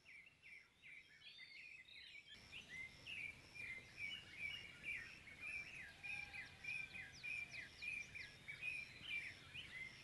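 Faint chorus of several birds giving short, high chirps and calls, many overlapping, a few each second. The background noise steps up about two seconds in.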